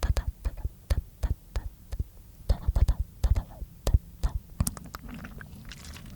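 Close-up mouth sounds into a microphone: a quick run of wet clicks and smacks, about three or four a second, giving way about five seconds in to a soft, low, steady hum.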